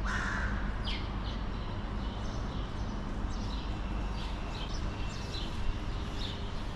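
Outdoor city-street ambience: a steady low rumble, with a string of short, sharp high ticks at irregular spacing, a few a second.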